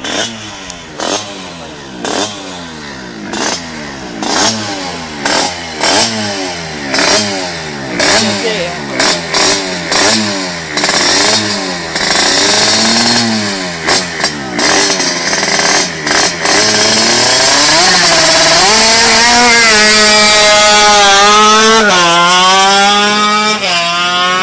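Tuned two-stroke Vespa scooter engine revved in short, sharp blips while held at the start line. About sixteen seconds in it goes to full throttle for a standing-start launch: the pitch climbs steadily, drops once at a gear change near the end, and climbs again.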